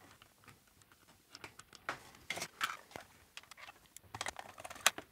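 Hands handling a small plastic mouse housing and its cable: scattered light clicks and rustles, with one sharper click near the end.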